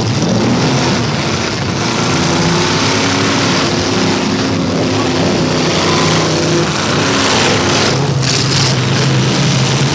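Several demolition derby cars' engines running and revving together, their pitches sliding up and down over one another, with a short burst of harsh clattering noise about eight seconds in.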